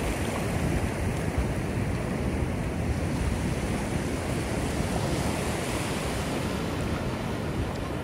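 Ocean surf washing onto the beach in a steady rush, with wind buffeting the microphone as a low rumble.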